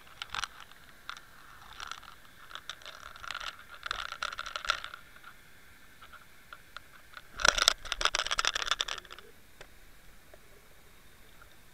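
Underwater: a fishing rig and its camera dragging and bumping over a shell-covered river bottom, heard as bursts of clicking, crackling scrapes. The loudest, densest burst comes about seven and a half seconds in.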